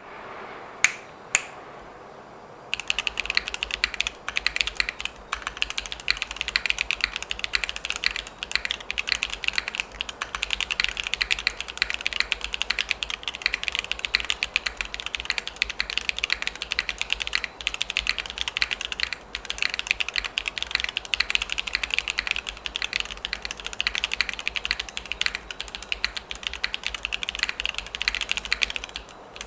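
Custom mechanical keyboard with lubed Holy Panda tactile switches on a burger-mounted aluminium plate, typed on fast and continuously. Two single clicks about a second in, then a steady stream of rapid keystrokes with a few short pauses.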